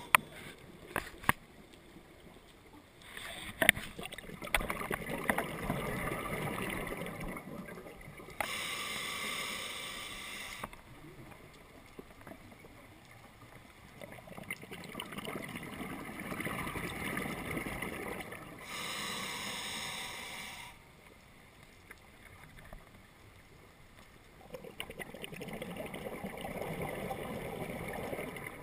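Scuba diver breathing through a regulator underwater: long exhalations of bubbling rumble alternate with shorter hissing inhalations, a full breath about every ten seconds. A few sharp clicks in the first few seconds.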